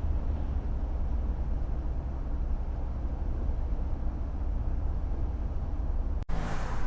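Steady low road and engine rumble of a minivan driving, heard inside the cabin. About six seconds in it cuts out for an instant, and a brighter rushing noise follows.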